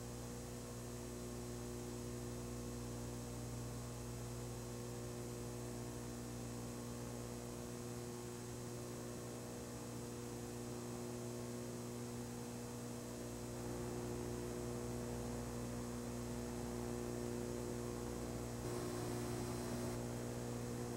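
Steady electrical mains hum over a faint hiss, with no programme sound. It grows slightly louder about two-thirds of the way through.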